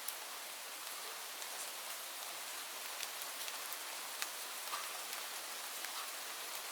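Steady rain falling, an even hiss with scattered sharp drip ticks from individual drops striking a surface.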